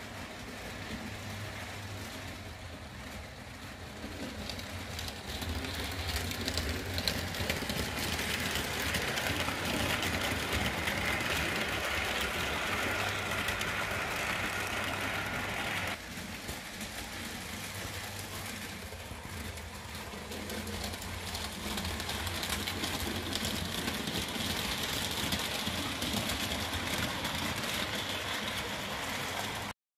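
HO-scale model trains running on a layout: a steady whirring rumble from the motors and wheels on the rails, with many small clicks. The sound drops abruptly about halfway through, then builds again and cuts off suddenly near the end.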